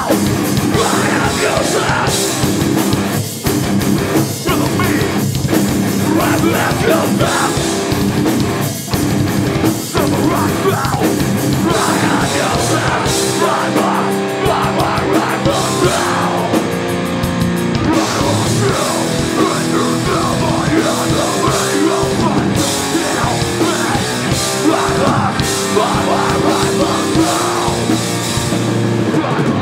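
Hardcore band playing live: distorted electric guitars, bass guitar and a drum kit, with shouted vocals over them.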